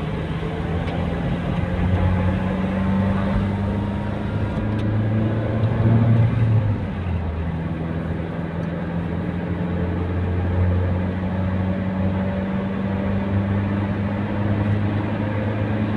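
Car engine and tyre noise heard from inside the cabin while cruising on a motorway: a steady low drone that shifts slightly in pitch now and then.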